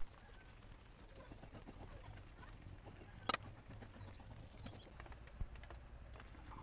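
Quiet background with a sharp knock at the very start and another a little over three seconds in, from a wooden rolling pin and steel plate being handled while rolling out dough.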